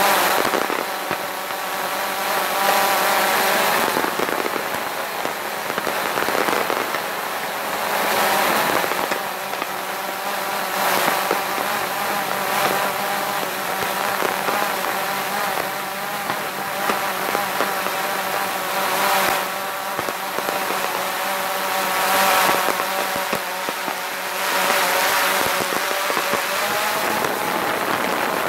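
Drone's propellers and motors humming steadily, a held stack of tones heard close from the aircraft itself. Fireworks crackle and pop in bursts every few seconds.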